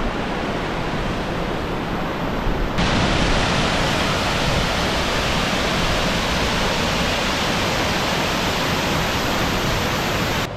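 Steady rushing of a mountain stream and waterfall in spate, swollen by a night of rain. About three seconds in the rush turns louder and hissier.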